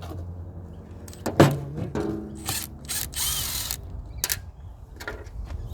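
Hand disassembly of an electric chainsaw's plastic motor housing: a series of clicks and knocks as parts and tools are handled, the loudest about one and a half seconds in, with a short rasping scrape about three seconds in.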